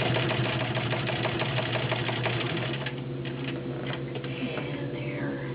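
Class 15 clone straight-stitch sewing machine, badged "Rolls", with its electric motor running, sewing through four layers of leather: rapid even stitching for about the first three seconds, then slower, fewer stitches over the steady motor hum.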